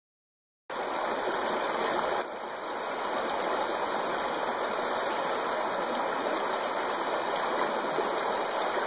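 Creek water running and rippling past rocks, a steady rush heard close to the water surface, starting about a second in.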